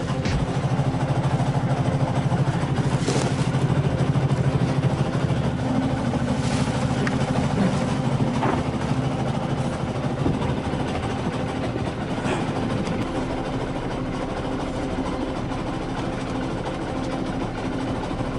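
Fishing boat's engine running steadily, a low even drone, with a few short knocks and rustles from the catch being handled in plastic bags and a bucket.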